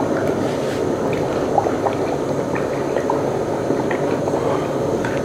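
Ghee boiling in a pot as cream is cooked down, a steady bubbling sizzle with many small scattered pops. The last of the buttermilk is boiling off and the ghee is close to ready.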